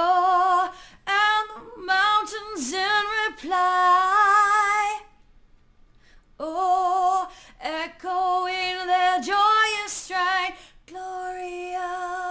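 A female voice singing unaccompanied, in phrases of long held notes with vibrato, with a pause of about a second and a half midway.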